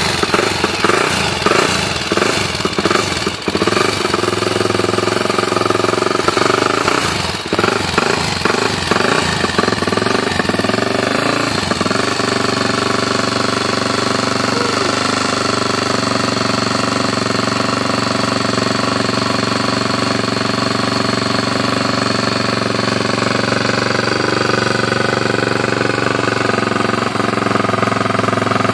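Honda XR400R's air-cooled single-cylinder four-stroke engine, its top end freshly rebuilt, running just after starting: uneven and irregular for about the first twelve seconds, then settling into a steady idle.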